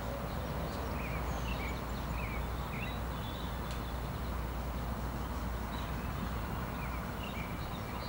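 Steady low rumble of distant city traffic, with scattered short high chirps of small birds.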